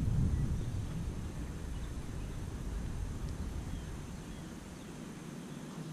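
Low, uneven rumble of wind buffeting the microphone, easing off gradually over the few seconds.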